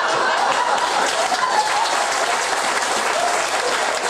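Audience applauding, with voices mixed in through the clapping.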